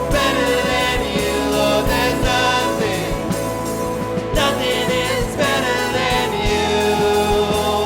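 Live church worship band playing an instrumental passage: held chords with a steady drum beat.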